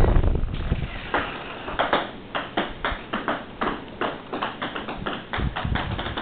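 Small electric coaxial RC helicopter (E-flite Blade CX2) winding down after full power: the motor and rotor sound dies away in the first half second. A regular run of sharp ticks follows, about three or four a second, as the rotors slow.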